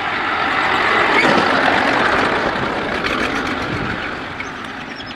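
Massey Ferguson tractor pulling a loaded soil trolley, driving past: its running noise grows louder over the first two seconds, then fades as it moves away.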